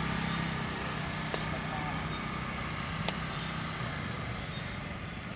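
A steady low motor hum under outdoor background noise, with one sharp click about a second and a half in.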